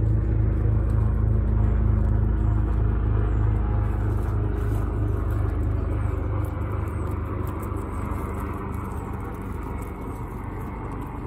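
Low motor rumble with a regular pulsing beat, loud at first and slowly fading away over the second half.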